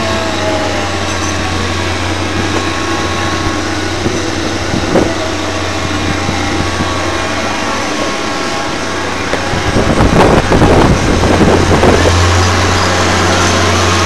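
Steady low engine-like hum of fairground ride machinery and generators under a broad noisy wash, turning louder and rougher for about two seconds around ten seconds in.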